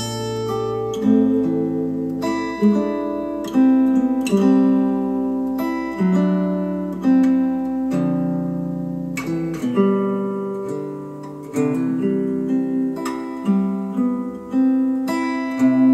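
Plucked acoustic-guitar music playing through hi-fi bookshelf speakers, first a pair of Q Acoustics 3030i, then a pair of Polk Audio Reserve R200 from about ten seconds in, when a faint low hum under the music stops.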